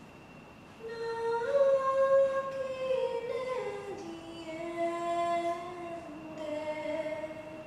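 A woman's voice singing a slow, wordless melody of long held notes, rising at first, then stepping down to a lower note that is held almost to the end.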